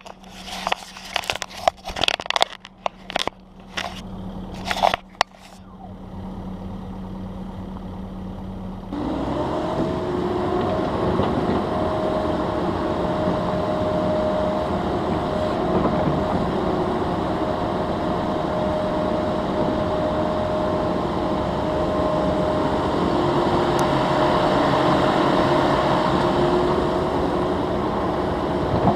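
Caterpillar 308E2 mini excavator running while it digs, its diesel engine and hydraulics giving a steady drone with a steady whine over it. Before it, for the first few seconds, there is irregular knocking and rustling close to the microphone; the machine sound comes in about six seconds in and grows louder about nine seconds in.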